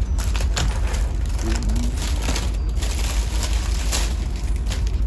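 Plastic and paper packaging crinkling and rustling in irregular bursts as wrapped sweets are handled, over a steady low rumble of the cargo ship's machinery.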